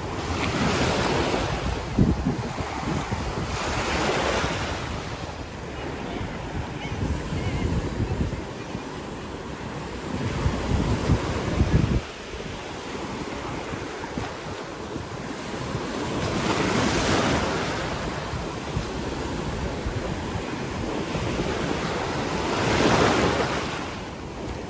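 Small Gulf waves breaking and washing up the shore, the surf swelling every few seconds, with wind buffeting the microphone, heaviest around the middle before it drops off suddenly.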